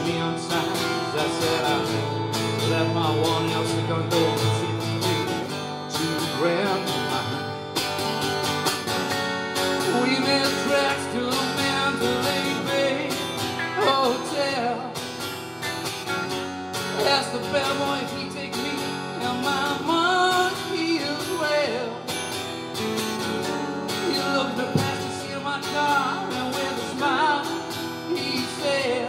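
Live acoustic guitar and electric guitar playing together: the acoustic is strummed while the electric plays lead lines with notes that bend in pitch.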